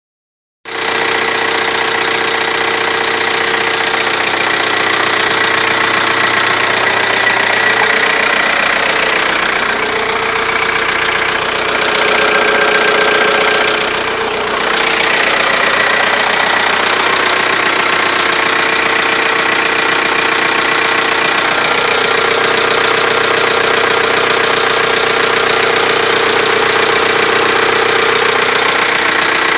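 Turbodiesel TDI engine running steadily with an abnormal noise that the owner, having just replaced the cylinder head, suspects is a valve. The sound dips briefly about halfway through.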